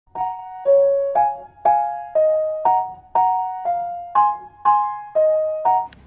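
Background music: chords on a keyboard, struck evenly about twice a second, each fading before the next.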